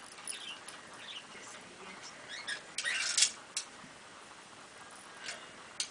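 Small dogs rooting among toys on a rug: short, high-pitched squeaks and chirps with light clicks and scuffling, and a louder rustling burst about three seconds in.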